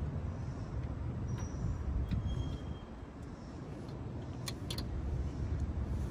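A steady low outdoor rumble with a few light clicks: one about a second and a half in, then a quick cluster of three about four and a half seconds in.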